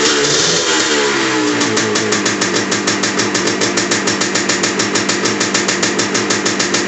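Single-cylinder two-stroke engine of a 1974 Yamaha DT360A enduro motorcycle running, its pitch wavering as the throttle is worked, then settling about a second and a half in into a steady idle with a fast, even popping beat. The carburetor still needs jetting adjustment.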